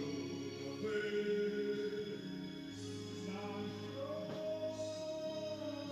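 Background music with a singing voice holding long, slow notes.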